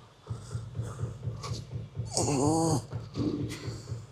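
A man's strained grunts and breathy exhalations from the effort of doing dips, with one loud groan that rises and falls in pitch about two seconds in and a shorter one a second later.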